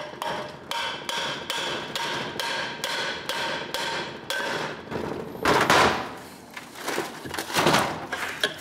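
Rapid, evenly spaced hammer taps on the steel cylinder of a 50-ton hydraulic bottle jack, about three a second, each with a metallic ring, as the cylinder is worked loose from the crud-packed base. They are followed by two louder scraping sounds, the second near the end, as the heavy cylinder shifts on the base.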